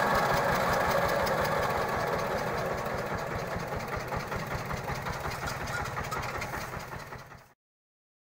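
Mobile rice mill running, driven by its diesel engine: a steady, rapid engine beat under the whirr of the husking and polishing machinery. It fades slowly, then cuts out about seven and a half seconds in.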